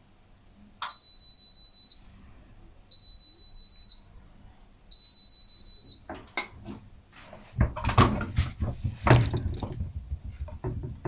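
ATLANT 50U101 washing machine beeping three times, each long high beep about a second, signalling the end of its wash programme. The beeps are followed by a run of knocks and clatter.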